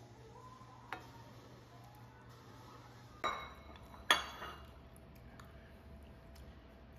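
Utensils clinking against ceramic bowls: a light tap about a second in, then two sharper clinks with a brief ring a little after three and four seconds in.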